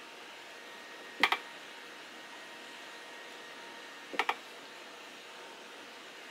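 Two quick clusters of light clicks, about a second in and again just after four seconds, over a steady low hiss.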